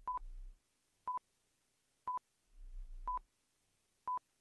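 Quiz countdown timer beeping: five short beeps at one steady pitch, one a second, as the count runs down from five to one.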